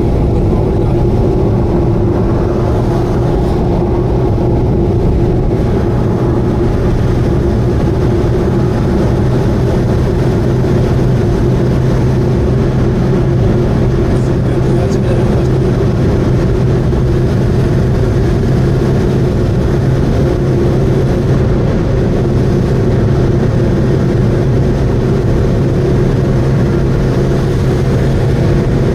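Subaru Vivio KK3 driving at steady expressway speed: a constant engine drone with an even hum under road and wind noise, unchanging throughout.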